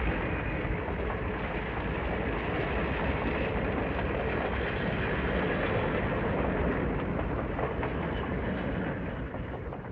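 Train running on rails: a steady rumble and rattle that begins to fade out near the end.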